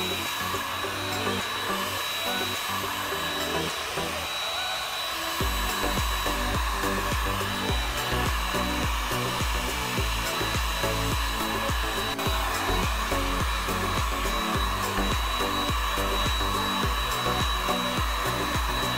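Electric hot-air blower running steadily with a constant high whine, the kind of tool used to heat and soften PVC pipe. Background music plays under it, with a bass beat coming in about five seconds in.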